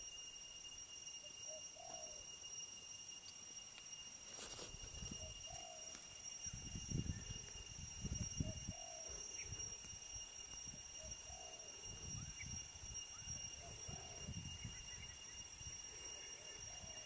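A dove cooing, a short call repeated about every three seconds, over a steady high-pitched hum and some low rumbling.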